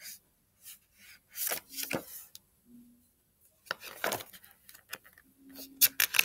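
Paper pages of a large hardcover picture book being handled and turned by a child's hands: short rustles and flaps in three clusters, about a second and a half in, around four seconds, and near the end.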